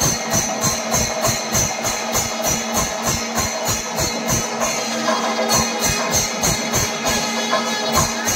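Temple-festival percussion music: drums beaten in a fast even rhythm of about four strokes a second, with cymbals clashing in time over a steady low drone.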